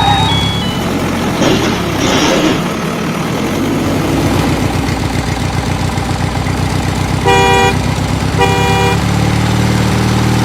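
Truck engine running steadily, with two short horn honks about seven and eight and a half seconds in.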